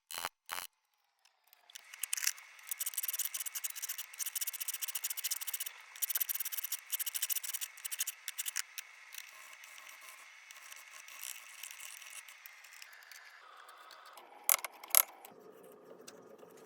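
Rapid, scratchy scraping or rubbing strokes, fading out after several seconds, then two sharp clicks near the end.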